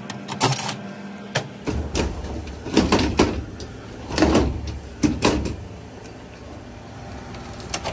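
A top-load washer's top panel being slid forward and lifted on its cabinet: several separate knocks and scrapes of the panel against the cabinet.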